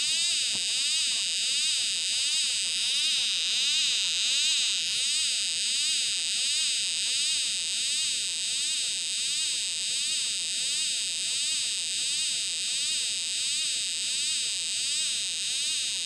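Homemade electronic police siren, an NE555 timer modulating a two-transistor (BC547/BC557) oscillator, sounding through a small loudspeaker. It gives a continuous, shrill electronic tone that sweeps rapidly up and down in pitch over and over without a break.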